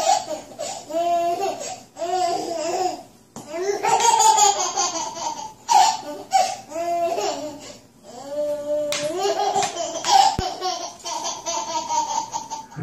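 A baby laughing in several high-pitched bouts of giggles, with short breaks between them.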